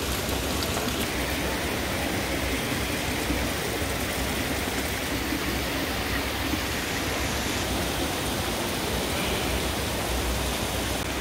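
Trevi Fountain's water cascading into its basin, a steady rushing wash.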